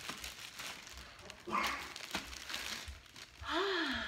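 Clear plastic wrapping on a handbag crinkling as the bag is handled and lifted out of its box, louder from about a second and a half in. Near the end comes a short voice sound whose pitch rises and falls.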